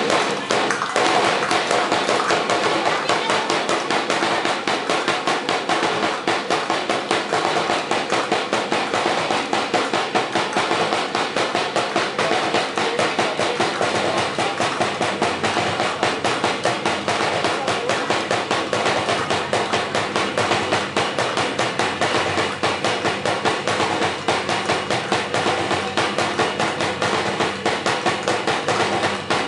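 Percussion playing a fast, steady beat for a Sinulog street dance: a dense, even run of sharp strikes.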